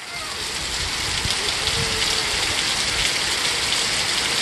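Heavy rain pouring down in a steady hiss, swelling up over the first half second and then holding level.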